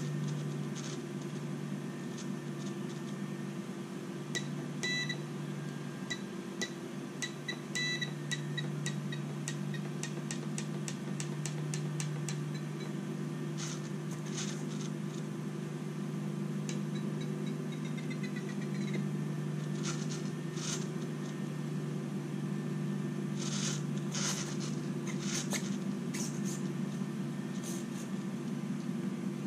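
Small hobby servos of an RC crawler's camera gimbal moving in brief whirring bursts as the gimbal is tested, over a steady low hum. A run of short electronic beeps and quick ticks comes in the first third.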